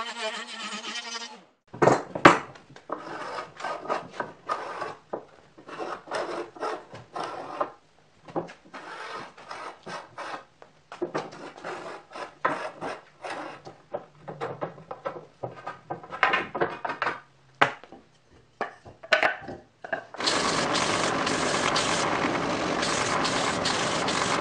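A router on a pantorouter cuts tenons and stops after about a second and a half. Then a hand tool scrapes and rasps on wood in irregular short strokes, with a sharp knock about two seconds in. From about twenty seconds in, a belt sander runs steadily as a tenoned rail end is held against the belt.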